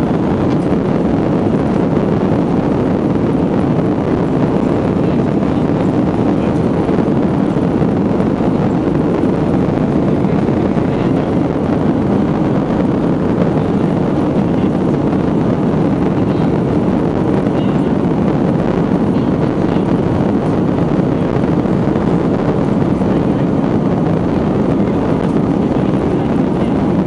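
Steady loud cabin noise of an Airbus A330-300 on its takeoff roll, heard from a window seat: the twin turbofan engines at takeoff thrust mixed with the rumble of the wheels on the runway.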